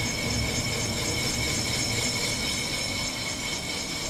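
Vertical cylinder boring machine running, its boring bar cutting inside an engine cylinder sleeve: a steady low hum with a steady high whine over it.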